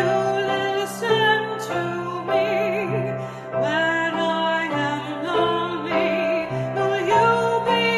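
Music: a solo voice singing with wide vibrato over sustained instrumental accompaniment.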